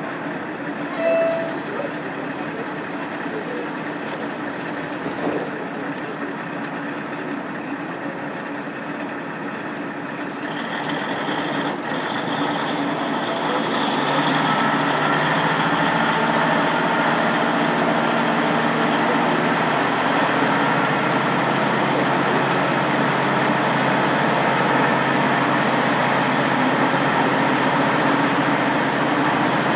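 Inside a KiHa 47 diesel railcar, its original DMF15HSA diesel engine running, then throttling up as the train gets under way, growing markedly louder between about ten and fourteen seconds in. A short beep sounds about a second in.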